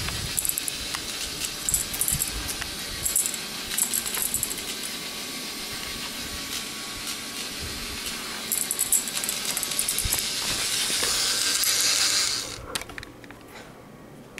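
K'nex ball machine running: balls rolling and clattering through the plastic track pieces in quick bursts of clicking over a steady hiss. The hiss and clatter drop away abruptly about twelve and a half seconds in.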